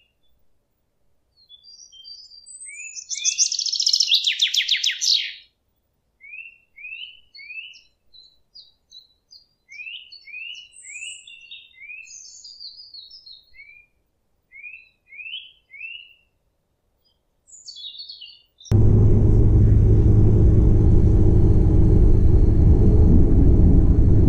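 Small songbirds chirping in short repeated notes, with a loud, fast rattling trill about three to five seconds in. About three-quarters of the way through, the birdsong cuts off abruptly and a steady low rumble of a moving train takes over, heard from inside the carriage.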